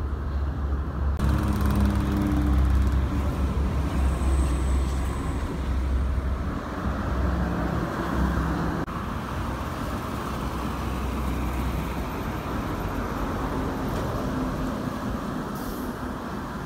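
Toll-road traffic passing at speed: an intercity coach goes by close with a deep, heavy engine sound, then steady tyre and traffic noise as cars and another coach approach.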